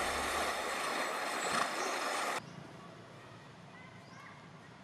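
Rushing, splashing water as horses wade and lunge through a river, cutting off suddenly about two and a half seconds in. After it comes a quiet background with a few faint high chirps.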